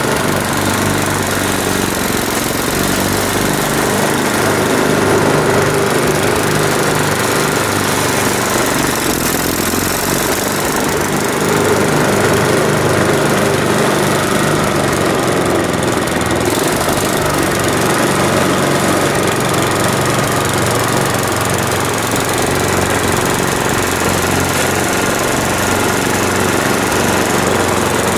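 Snowblower engine running steadily and smoothly.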